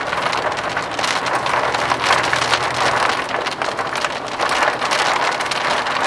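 Rain striking a moving car, heard from inside the car, with a low hum under it for the first three seconds.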